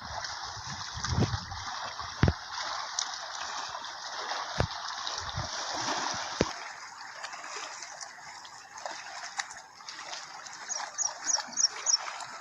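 Water splashing and trickling in a steady wash, with scattered low thumps in the first half. Five quick high chirps come near the end.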